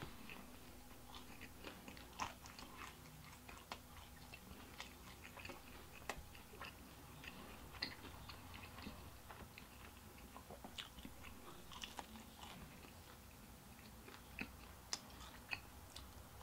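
Faint close-miked chewing of pizza: soft crunches and small wet mouth clicks at irregular moments, with another bite taken near the end.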